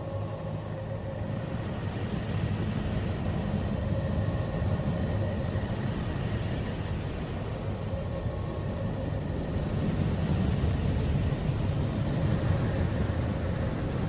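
Neptune's radio emissions, recorded by a NASA spacecraft and converted to sound: a continuous low rumbling drone with hiss that slowly swells and eases. Faint high held tones come and go over it.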